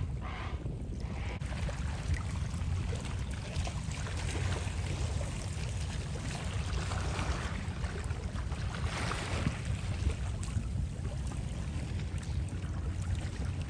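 Kayak paddle strokes dipping and splashing in the water, a wash of water about every two seconds, over a steady low rumble.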